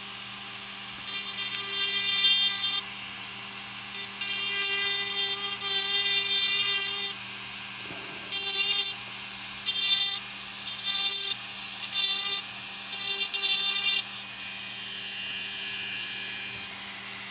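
Rotary tool spinning steadily while its bit grinds metal off the end of a Glock trigger bar in about seven short passes, each a loud high-pitched grinding whine, with the motor humming alone in between. The passes get shorter toward the end as the last bit of material comes off.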